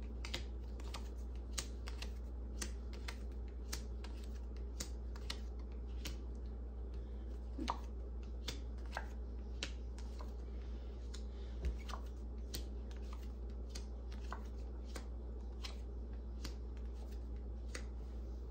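Tarot cards being shuffled by hand: irregular soft clicks of cards against cards, about two a second, over a steady low hum.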